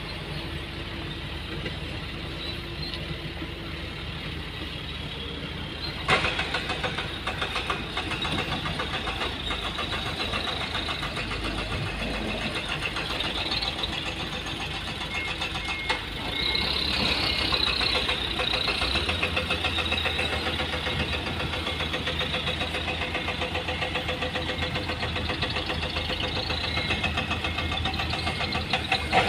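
Heavy diesel engine of construction machinery running with a fast, even knock. It turns suddenly louder about six seconds in and louder again past the middle, with a steady low hum joining soon after.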